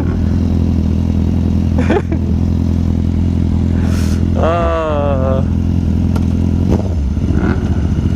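Motorcycle engine idling steadily, with a drawn-out call from a person's voice, falling in pitch, about halfway through.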